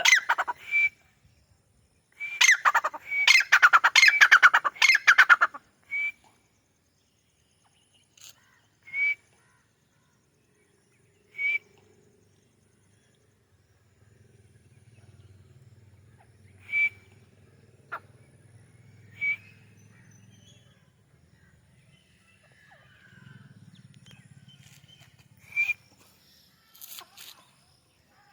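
White teetar, a francolin, calling: a loud run of rapid, harsh repeated notes about two seconds in that lasts about three seconds, then single short call notes every few seconds. A faint low hum sits under the calls in the middle part.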